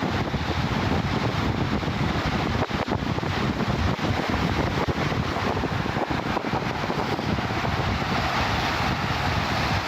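Strong wind buffeting the microphone: a dense, gusting rumble that never lets up.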